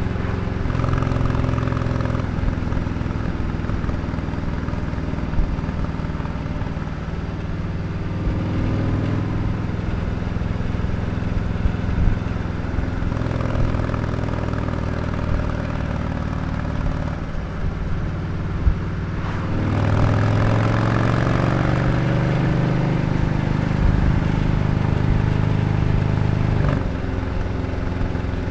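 2020 Harley-Davidson Sport Glide's Milwaukee-Eight 107 V-twin running through a Dr. Jekill & Mr. Hyde aftermarket exhaust while riding at road speed. The engine note holds steady with a few steps in pitch as the throttle and gears change. About two-thirds of the way through it pulls harder, rising and getting louder, then settles back near the end.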